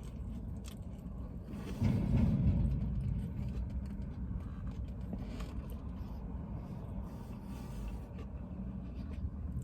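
Steady low rumble of a running vehicle heard from inside, swelling louder for about a second roughly two seconds in.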